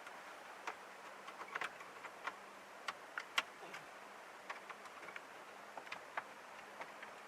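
Irregular light clicks and ticks, a few a second and uneven in strength, over a faint steady hum.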